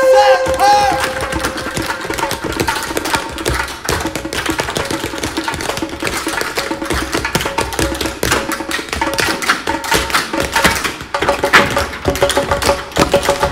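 Tap-dance footwork: a dense, fast run of sharp taps and stomps from the dancers' shoes, over music with a held tone in the last few seconds.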